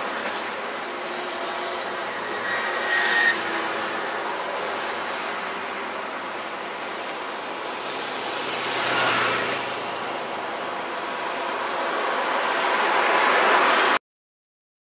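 Road traffic noise: a continuous wash of passing vehicles, with a few short sharp sounds in the first second, one vehicle swelling past about nine seconds in and another building up near the end before the sound cuts off abruptly.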